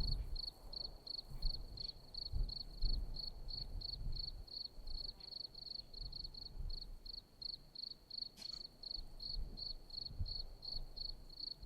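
A cricket chirping steadily, a high, even pulse about three or four times a second, with one faint click partway through.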